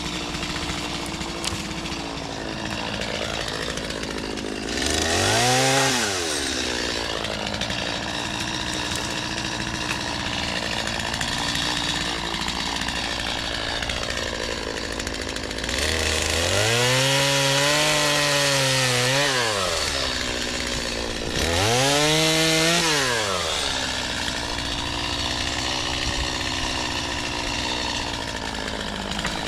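Chainsaw idling, revved up three times: a short rev about five seconds in, a longer one of about four seconds near the middle, and another soon after, each rising and then falling in pitch.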